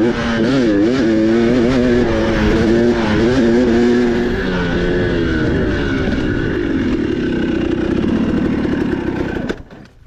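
Dirt bike engine revving up and down as it is ridden, its pitch rising and falling with the throttle, then settling to a steadier drone before it drops away sharply near the end.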